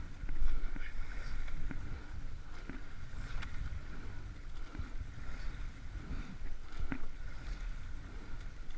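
Sweep-oar rowing boat under way at steady rowing: water washing along the hull and at the blades, with wind on the microphone, broken by a few sharp knocks of the oars working in their gates, the clearest about three and a half and seven seconds in.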